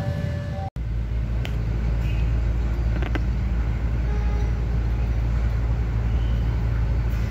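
Steady low rumble of a diesel locomotive hauling a fuel tank-wagon train, with a couple of faint clicks. The sound drops out for an instant under a second in.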